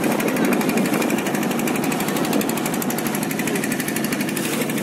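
A boat's engine running steadily, with a rapid, even chugging.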